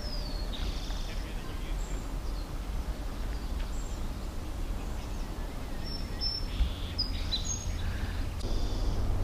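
Outdoor ambience: a steady low rumble with scattered short, high bird chirps, one falling at the start and a cluster about six to seven and a half seconds in.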